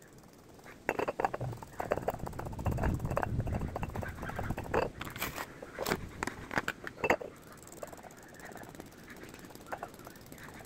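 Irregular taps, knocks and rubbing as a sponge dabs acrylic paint onto a glass bottle and the bottle and a plastic paint tray are handled on a tabletop, busiest in the first seven seconds and quieter near the end.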